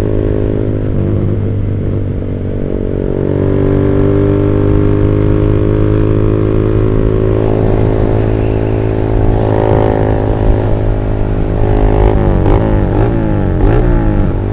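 Motorcycle engine through a WRX GP5 aftermarket exhaust (25 cm, half baffle) under way, with a deep, bassy note. The revs climb slowly, then rise and fall several times near the end. Wind on the microphone partly covers the exhaust.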